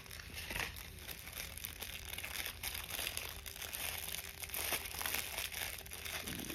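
Packaging rustling and crinkling in irregular bursts as a package is opened by hand.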